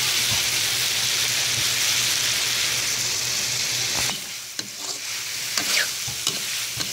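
Ham, bacon and ground pork sizzling in butter in an aluminium wok while a metal ladle stirs them. About four seconds in, the sizzle drops off, leaving the clacks and scrapes of the ladle against the wok.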